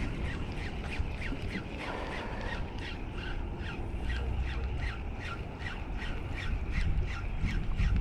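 A bird calling over and over in a rapid, even series of short squawks, about four a second.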